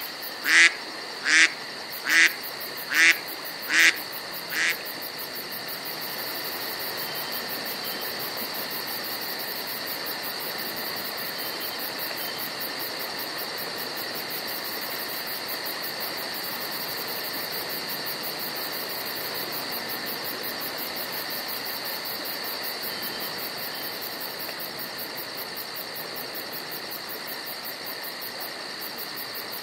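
A mallard duck quacking in a fading run of about seven quacks, a little under one a second, ending about five seconds in; after that only a steady high-pitched hiss.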